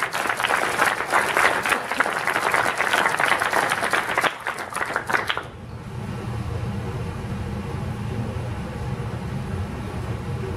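Audience applause, a dense patter of many hands clapping, that dies away about five and a half seconds in. A steady low hum is left behind it.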